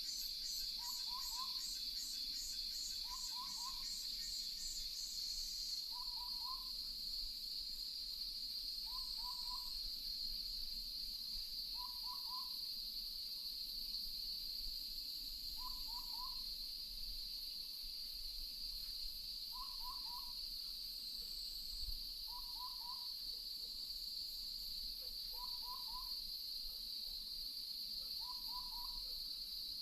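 Night field recording: a short call of two or three quick notes, repeated about every three seconds, over a steady high-pitched insect chorus. A second, pulsing insect buzz stops about five seconds in.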